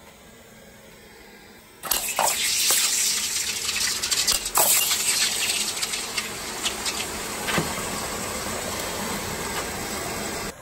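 Freshly cast aluminum ingots quenched in a steel bowl of water: about two seconds in, a loud hissing sizzle starts and goes on steadily, full of crackles and pops as the water boils against the hot metal.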